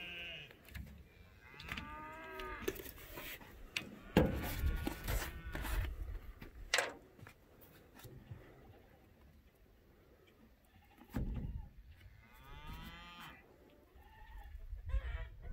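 Cattle mooing twice in the background, each call about a second long with a bending pitch, about two seconds in and again near the end. Between them come sharp clicks and knocks of caps and fuel and bar-oil containers being handled on a steel truck bed.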